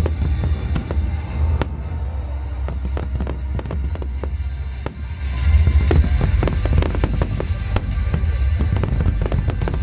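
Fireworks display: rapid bangs and crackling bursts over a deep booming rumble, growing louder about halfway through, with music playing along.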